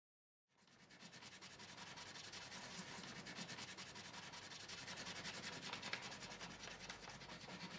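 A paintbrush scrubbing quickly back and forth on paper: a faint, even rubbing of rapid strokes that fades in about half a second in and slowly grows louder.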